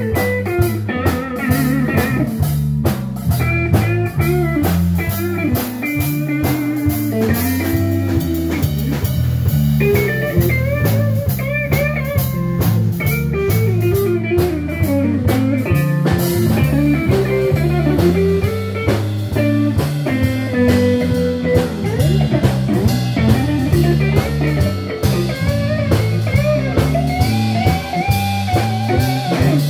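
Live blues band playing an instrumental passage on electric guitar, electric bass and drum kit: a stepping bass line and a steady drum beat under a lead line of bent, wavering notes.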